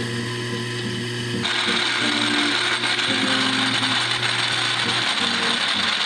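A small power tool running steadily with a grinding, mechanical noise, plausibly polishing the rifle's screws, under quiet background music.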